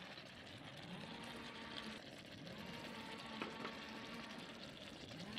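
Faint, steady simmering of chicken in tomato sauce in a stainless wok, with a few soft ticks as a pepper shaker is shaken over it.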